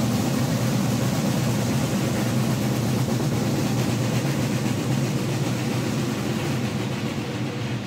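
Several side drums playing a continuous massed roll, which stops near the end.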